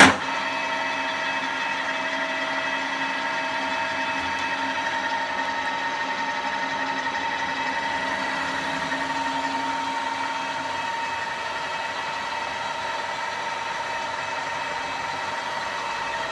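Bridgeport Model 1S horizontal milling machine running steadily under power, its motor and spindle gearing giving a constant whine of several steady tones over a mechanical hum. It cuts in suddenly at the start.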